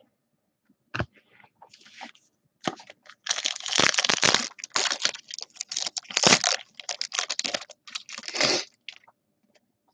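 A trading card pack's foil wrapper being torn open and crinkled, in a string of rustling, crackling bursts over several seconds.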